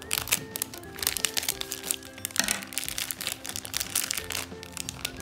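Thin plastic blind-bag wrapper crinkling as it is cut with scissors and pulled open by hand, with many short crackles. Background music with held notes plays under it.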